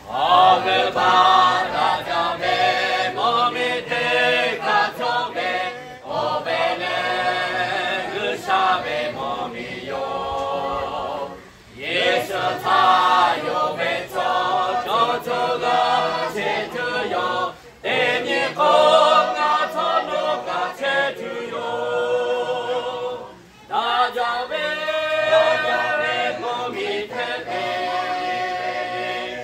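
A mixed choir of men and women singing together unaccompanied, in phrases of about six seconds with short breaks between them.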